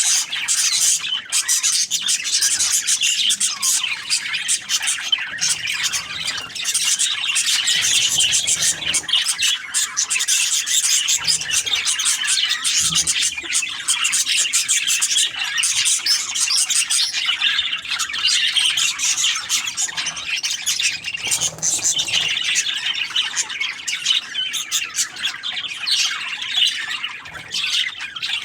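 Budgerigars (budgie parakeets) chirping and chattering continuously, many short high calls overlapping with occasional squawks.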